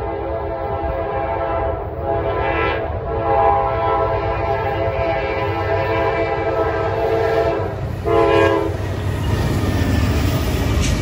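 Diesel locomotive air horn, the NYC 1066 heritage unit, sounding a multi-note chord in a long blast with brief breaks, then one short blast about eight seconds in. After the horn stops, the train's low rumble goes on.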